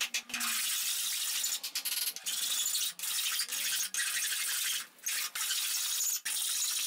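Hand file rasping across the end of a wooden axe handle in repeated back-and-forth strokes, each about a second long with short breaks between, shaping the handle end to fit the axe head.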